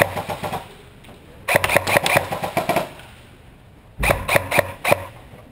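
Airsoft rifle firing in rapid full-auto bursts: the end of one burst at the start, a longer burst of a little over a second about a second and a half in, and a shorter one about four seconds in.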